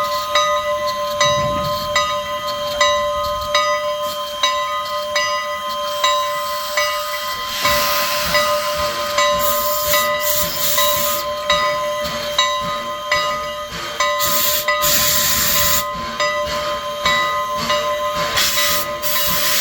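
Steam locomotive No. 89 hissing steam over a steady whine, with a regular beat about one and a half times a second. From about eight seconds in, a louder hiss of venting steam comes in, swelling in bursts.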